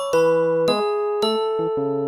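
Background music: a light melody of pitched notes with a bell-like, mallet-percussion sound.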